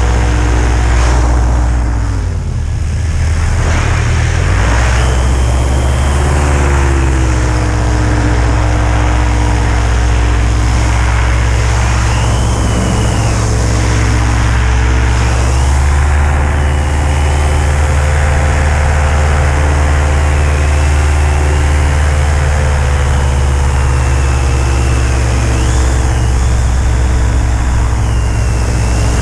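EOS 150 paramotor engine and propeller running steadily in flight. It is throttled back briefly about two seconds in and brought up again around five seconds. The pilot says the engine lost power on this flight and was held to about 6000 rpm.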